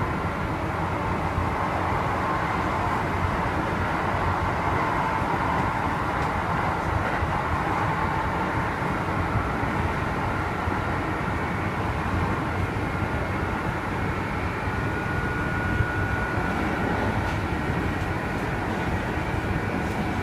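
Kintetsu 2610-series electric train (set X25) running, heard inside the car: a steady low running rumble with high tones over it. High and low tones mix in its running sound, the unusual noise of this set.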